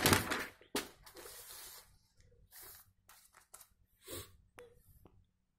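Newspaper pages rustling and crinkling as they are handled, in short, scattered bursts that thin out after the first couple of seconds.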